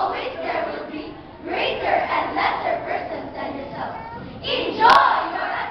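Speech choir of schoolchildren reciting a poem in unison, many voices chanting phrase by phrase. A sharp snap comes about five seconds in, with the loudest shouted phrase.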